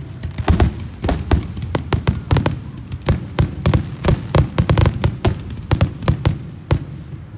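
Aerial fireworks display: shells bursting in quick succession, a rapid run of sharp bangs and pops, several a second, over a low rumble.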